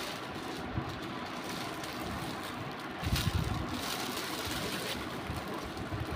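Plastic packaging crinkling as it is handled: a clear plastic polybag holding clothes and a torn plastic courier mailer, over a steady background hiss. There is a brief sharp rustle under a second in and a louder stretch of handling noise about three seconds in.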